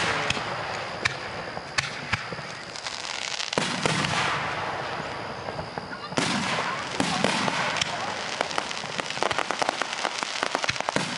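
Aerial fireworks bursting: big bangs near the start, about three and a half seconds in and about six seconds in, each followed by a long crackling trail, then a dense run of rapid crackling pops through the second half.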